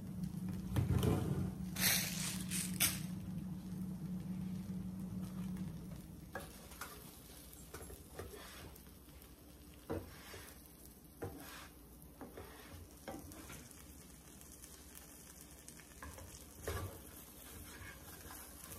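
Grilled cheese sandwich frying in olive oil in a nonstick pan, a steady sizzle, with a slotted plastic spatula scraping and knocking against the pan as the sandwich is pressed and moved: a burst of sharp scrapes about two seconds in and a few single knocks later. A low hum stops about six seconds in.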